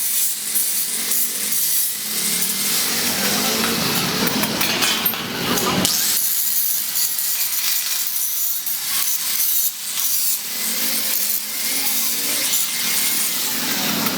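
A tool working iron: a continuous, mostly high-pitched scraping noise, pausing briefly about six seconds in.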